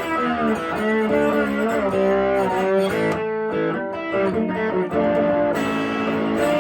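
Höfner Verythin Singlecut electric guitar played with a slide in open G tuning through a valve amp, in a blues figure of gliding slide notes and picked strings. Near the end it lands on a chord that rings out.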